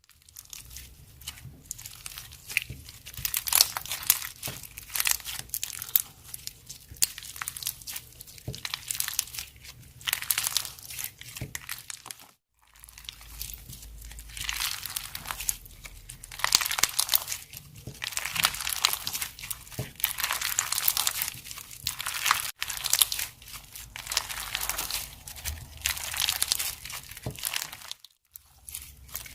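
Plastic packaging crinkling and rustling in irregular bursts, with some tearing, as a slime box is unwrapped. It stops briefly twice.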